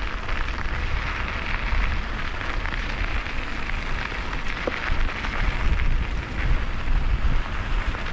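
Mountain bike tyres rolling over loose dirt and gravel on singletrack, a steady hiss, with wind buffeting the microphone as a low rumble.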